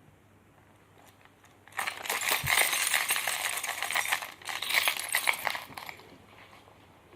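Metal keys jangling and clinking together in two spells of rapid jingling, starting about two seconds in, with a short break just past four seconds.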